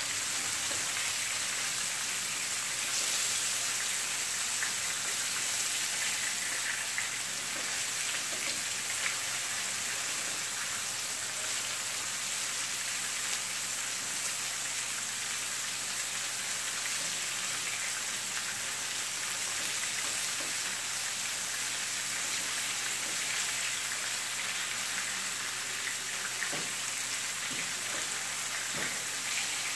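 Butterfish pieces frying in shallow oil in a pan: a steady crackling sizzle, with a few light clicks of the spatula against the pan as the pieces are turned.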